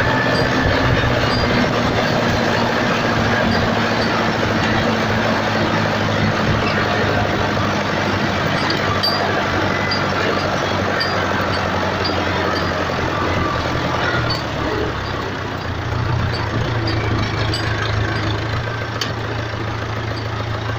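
Massey Ferguson 275 tractor's four-cylinder diesel engine running steadily through a newly fitted exhaust silencer. The engine note drops briefly about two-thirds of the way through, then picks back up.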